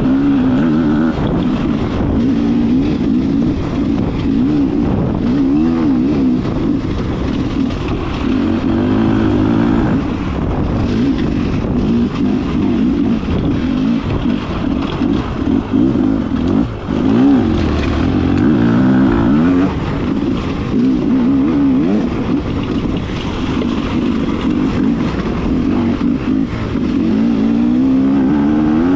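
Beta RR enduro motorcycle engine running hard, its pitch rising and falling repeatedly as the throttle is opened and closed.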